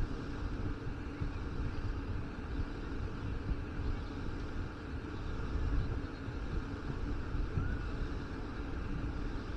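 Steady outdoor rumble of noise, strongest in the low end and surging unevenly, with no clear single source.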